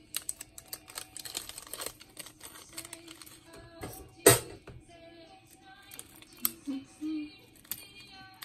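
Small clicks and plastic rustles from hands working a small plastic bag of metal keychain charms and tweezers, with long acrylic nails tapping. A single sharp click about four seconds in is the loudest sound.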